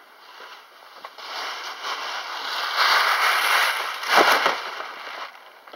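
Glossy gift bag rustling and crinkling right against the microphone, loudest about three and four seconds in.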